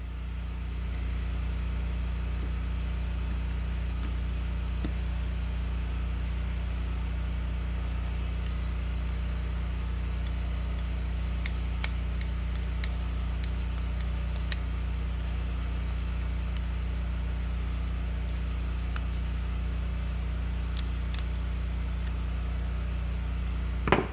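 Steady low machine hum, like a motor or fan running in the workshop, with a few faint metallic clicks from small parts and screws being handled on the carburetor.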